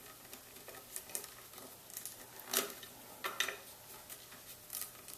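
Hands feeding a tail-light wire and its plug through the rear of a motorcycle: faint scattered clicks, taps and rustles of plastic and wire against metal, the loudest a little after two and a half seconds and again around three and a half.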